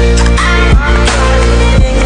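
Background music with a steady beat: deep bass, held synth notes and regular drum hits.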